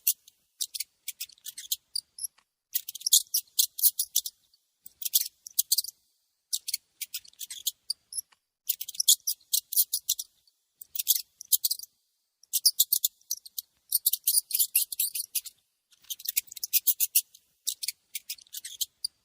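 Mouse squeaking: rapid, high-pitched chittering squeaks in bursts of about a second each, about ten bursts with short pauses between.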